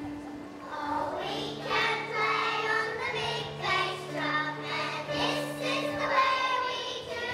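Children's choir singing a song, over long held low accompaniment notes.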